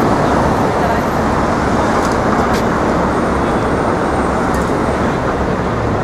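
Steady city street traffic noise: a continuous wash of passing vehicles.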